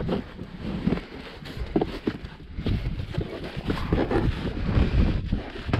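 A moulded rubber floor mat being handled and pressed into a van's footwell: irregular rubbing and dull knocks as its raised edges are flexed and pushed into place against the floor.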